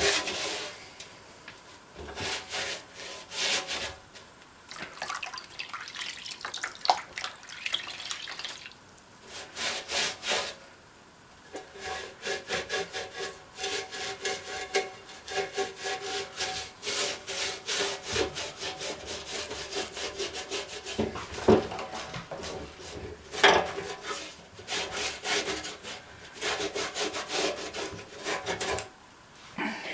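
Rag with dish soap and water scrubbing grease off an old lawn mower, in many short, uneven rubbing strokes.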